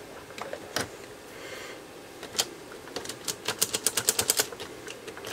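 A detented rotary switch on an old tube tester's front panel being turned through its positions. It gives a few single clicks, then a fast, even run of clicks at about ten a second from around three seconds in, while contact cleaner is worked into the contacts.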